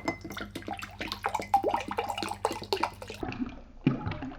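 Aloe vera water poured, splashing into a glass for about three seconds, then softer gulping sounds as it is drunk.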